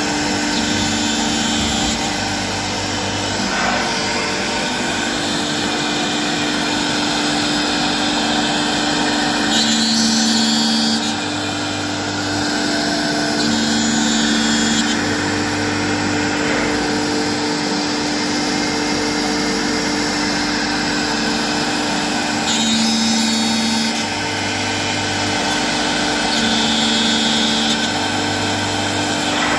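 CNC router spindle running steadily while it cuts slots into a Corian solid-surface sheet. The cutting note changes for a second or two at a time every few seconds.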